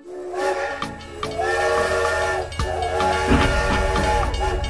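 Steam train whistle sounding in a few long blasts, several tones held together like a chime. A low rumble joins in about three seconds in.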